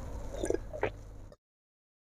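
A person drinking from a glass mug, with two soft gulping swallows about half a second and a second in; the sound then cuts off abruptly.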